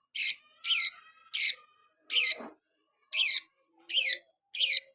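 Budgerigar calling: a series of seven short, high chirps spaced about half a second to a second apart, each a quick sweeping note.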